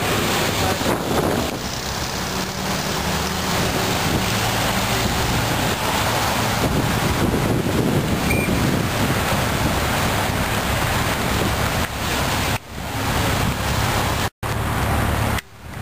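Wind buffeting the microphone over passing road traffic, with cars and police motorcycles driving by. The sound cuts out for an instant near the end.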